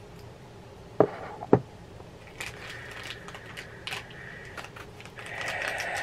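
Small cardboard mystery pin box being handled and opened: two sharp knocks about a second in, then quick clicks and crackling of packaging, with a louder rustle near the end.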